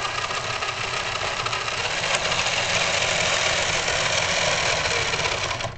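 Electric gear motor from an RC Tiger tank driving a model paddle steamer's paddle wheels forward through a steel roller chain: a steady mechanical running sound that cuts off suddenly near the end.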